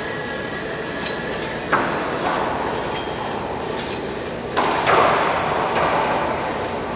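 Racquetball rally on an enclosed court: sharp smacks of the ball echoing off the walls, one about two seconds in and a louder pair about four and a half to five seconds in, over a steady background hum.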